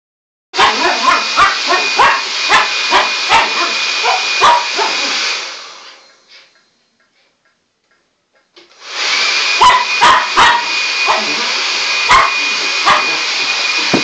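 A hair dryer blowing with a thin high whine while a dog barks at it again and again. About five seconds in the dryer winds down to silence, and about three seconds later it starts up again, with the barking continuing over it.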